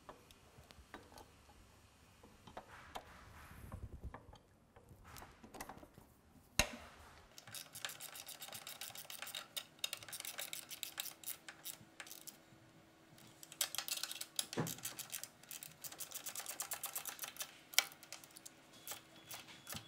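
Ratcheting wrench clicking in rapid runs, several spurts of fast ticks, as the bolts of the tractor's TCM bracket are tightened. It follows some light handling knocks and a single thump.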